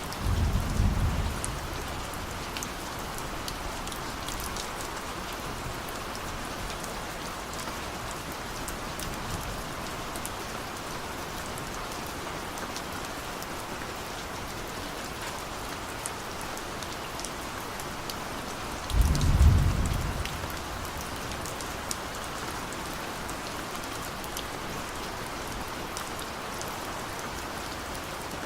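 Steady rain with scattered drop ticks, and two short low rumbles of distant thunder: one in the first second and a louder one about two-thirds of the way through.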